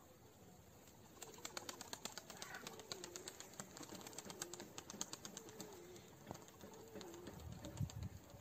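Domestic pigeon cooing: a low, wavering call that runs for several seconds from about two seconds in, over a fast run of light clicks. A couple of low bumps come near the end.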